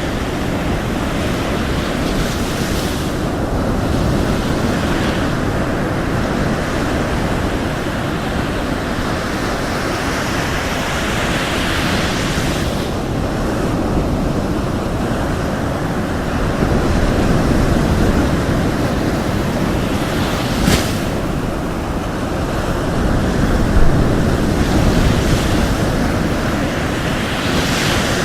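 Waves breaking and washing up a shore, a continuous rushing with hissing swells every few seconds, with wind. One brief sharp click about three-quarters of the way through.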